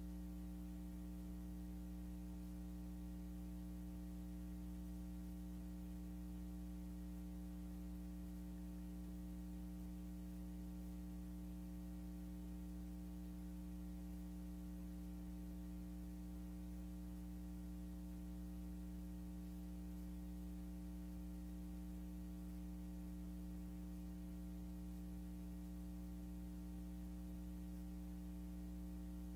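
Steady low electrical mains hum with a faint hiss, unchanging throughout; the silent film has no sound of its own.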